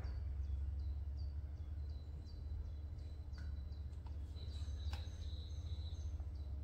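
Steady low hum with a bird chirping over and over in short falling notes, about two a second. Near the middle come a couple of faint clicks as a small paint bottle is handled.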